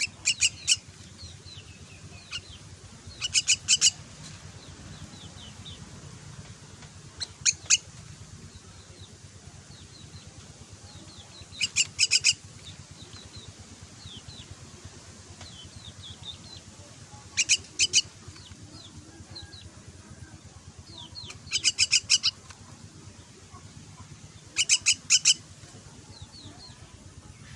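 Young mynas calling in short harsh bursts of two to four notes, repeated every few seconds, with faint high chirps in between.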